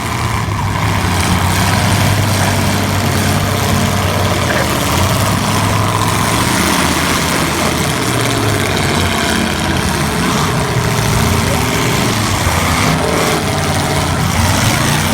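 Demolition derby cars' V8 engines running together, a steady, loud mass of engine sound.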